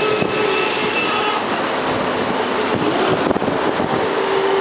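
Steady road-traffic and engine noise with a steady whine, and wind buffeting the microphone.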